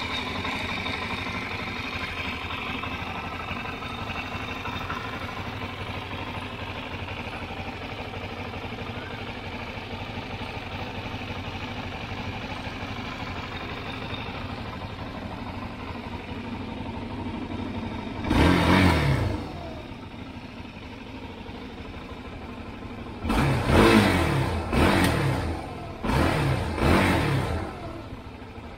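Suzuki DR-Z400SM's 398 cc single-cylinder four-stroke engine idling steadily. It is revved once, a little past halfway, and three more times in quick succession near the end, each rev falling back to idle.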